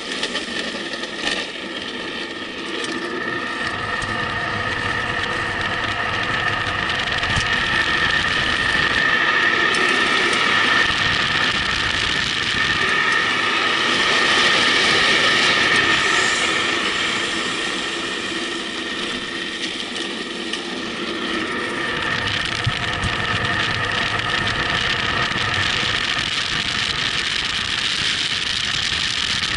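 Wind rushing past the camera and tyres rolling on asphalt during a fast downhill run on a road descent bike, with a steady whine running through it. The noise swells to its loudest about halfway through, then eases a little.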